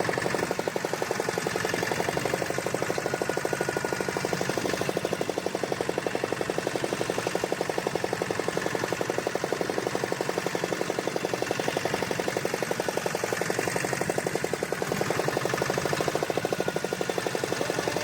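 A fishing boat's engine running steadily, with a rapid, even knocking beat.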